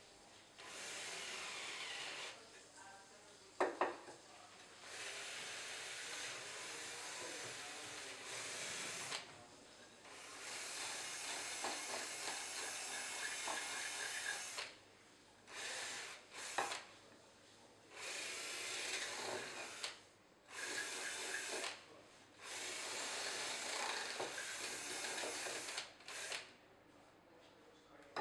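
Rough scraping noise in repeated stretches of one to four seconds with short gaps, and a sharp knock about four seconds in.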